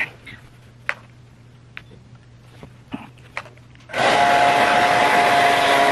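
Hand-held hair dryer blowing, switched on about four seconds in and running steadily with a faint whine until just before the end. Before it comes on there are only a low hum and a few soft handling clicks.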